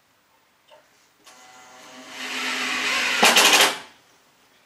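Cordless drill driving a screw into the end of a pelmet: the motor whine builds for about two seconds, then a short, louder rattle as the screw seats, and it stops suddenly.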